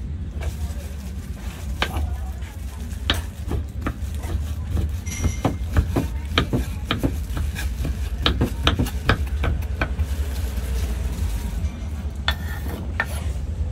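Kitchen knife chopping cheese on a wooden cutting board: a run of sharp knocks, quickest in the middle, with a few more near the end as the board is cleared, over a steady low hum.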